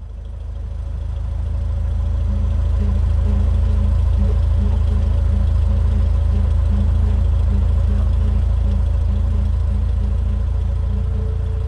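Single-engine light aircraft's piston engine and propeller running at low taxi power, heard from inside the cabin: a steady low drone that fades in over the first couple of seconds, with a faint, even pulsing beat.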